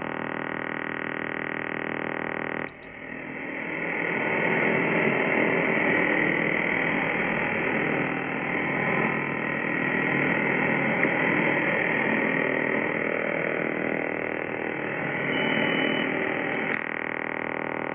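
Shortwave receiver (Icom IC-R71E) in LSB carrying the pulsed interference of a Russian over-the-horizon radar as a harsh, steady buzz. About three seconds in a click marks the noise blanker being switched on: the radar buzz drops out and hissing band noise rises in its place. Near the end another click and the buzz returns.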